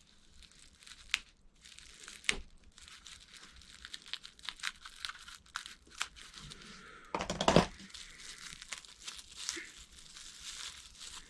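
Sellotape being picked at and peeled off small parts, with crinkling and scattered small clicks, and one louder rip of tape about seven seconds in.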